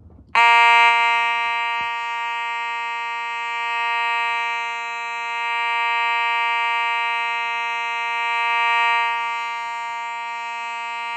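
Simplex fire alarm horn sounding during a test: a loud, steady, buzzy tone that starts abruptly about half a second in and holds without a break, a continuous rather than coded signal.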